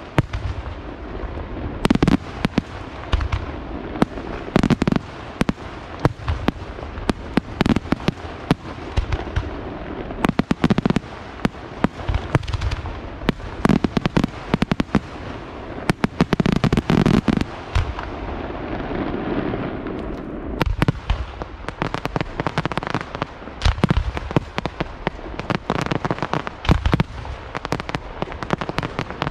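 Aerial firework shells bursting in a dense, unbroken barrage: sharp bangs several times a second over a continuous rumble of overlapping reports.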